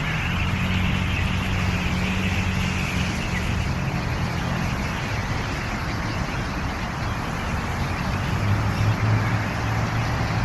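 A motor vehicle engine running steadily: a constant low hum over a haze of road or traffic noise.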